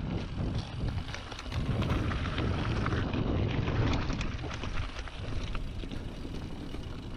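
Specialized Stumpjumper mountain bike rolling down a rocky dirt trail: tyres crunching over loose stones and the bike rattling in many quick clicks, with wind buffeting the handlebar camera's microphone. The wind rumble eases in the second half.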